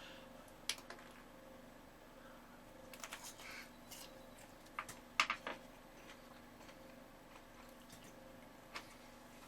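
Scattered faint clicks and taps, a few single and a quick cluster about five seconds in, over a steady low hum.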